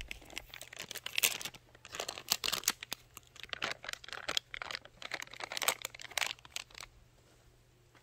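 Plastic pancake-mix pouch crinkling and crackling in the hands as its powder is tipped into a ceramic bowl, in a dense run of short rustles that stops about seven seconds in.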